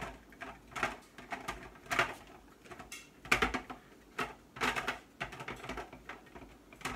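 Irregular plastic clicks and knocks as a Black & Decker food processor's work bowl and lid are handled and fitted onto the motor base, several a second.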